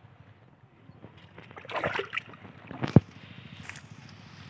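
Water splashing in a shallow tank of caught fish as a hand works among them, with a burst of sloshing about two seconds in and one sharp slap, the loudest sound, about a second later.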